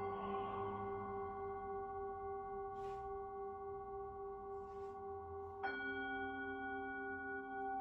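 Hand-held Tibetan singing bowl ringing after a mallet strike, its main tone pulsing slowly as it sustains. About five and a half seconds in it is struck again, and a lower tone joins the ring.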